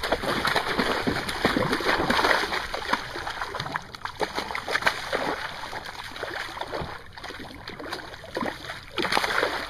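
Hooked largemouth bass thrashing at the water's surface beside the boat: a run of irregular splashes, busiest in the first few seconds and sparser after.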